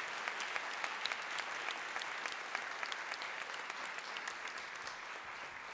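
Auditorium audience applauding, a dense patter of many hands clapping that begins to thin out near the end.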